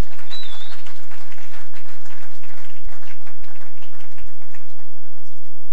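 Audience applauding: a dense patter of many handclaps that thins out and stops about five seconds in.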